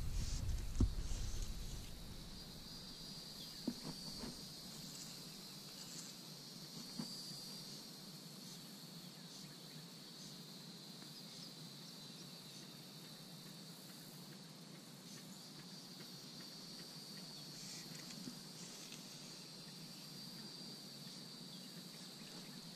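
Insects trilling steadily in a high pitch. A low rumble and a single knock come in the first couple of seconds.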